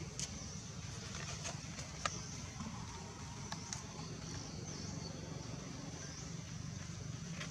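Outdoor ambience: a steady low rumble and a thin, high, steady drone, with a few faint clicks.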